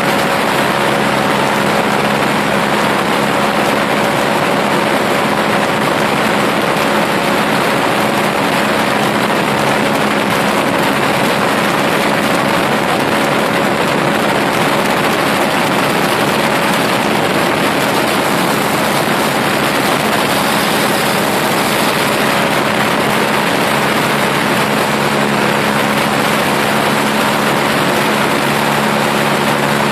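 Small aircraft's engine and propeller running at a steady cruise, heard from the cockpit under a constant rush of wind.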